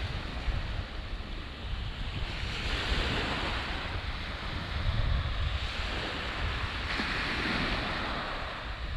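Small waves washing up onto a sandy beach, the hiss of the wash swelling twice, with a low rumble of wind on the microphone throughout.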